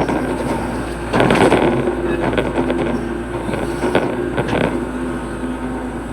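Hitachi hydraulic excavator's diesel engine running with a steady drone, louder from about a second in, with a few short knocks as it digs.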